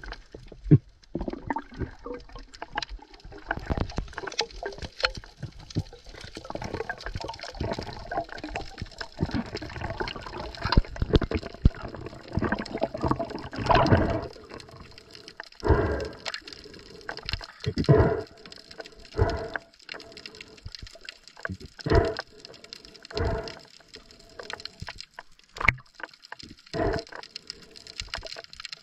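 Water sloshing and gurgling, heard muffled through an underwater camera housing, with irregular louder surges that come every second or two in the second half.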